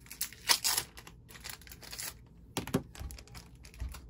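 Plastic card holders and their tape being handled, with irregular crinkling rustles. The loudest rustle comes about half a second in, and a couple of sharp plastic clicks follow near the three-second mark.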